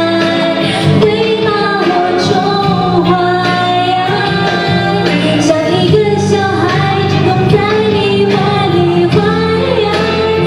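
A woman singing a Mandarin pop song through a handheld microphone over instrumental accompaniment.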